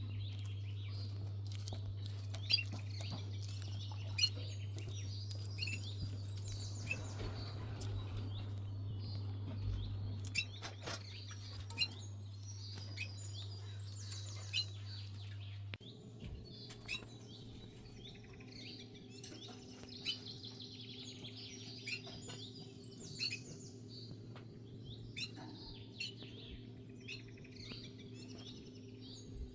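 Small birds chirping over and over, with short high calls scattered throughout, above a steady low hum that changes to a different, higher hum about halfway through. A few sharp clicks stand out here and there.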